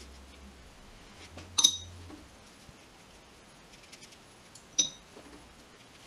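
Two sharp clinks with a brief high ring, about three seconds apart, as a paintbrush knocks against a hard container while watercolour painting. Faint small taps in between.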